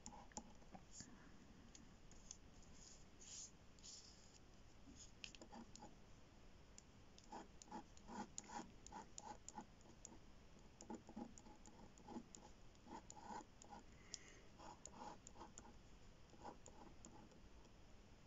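Faint scratching and ticking of a ballpoint pen on paper as many short strokes are drawn, in an irregular scatter of quick, light clicks.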